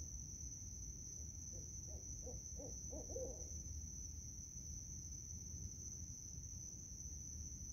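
Barred owl hooting: a quick run of about five short hoots starting about a second and a half in, ending in a longer note that slides down. A steady high-pitched hum runs underneath.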